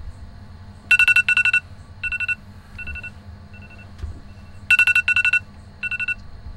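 iPhone alarm going off: rapid electronic pips in bursts, a loud burst about a second in and again near 5 s, each followed by fainter echoing repeats. It is the 5 a.m. wake-up alarm.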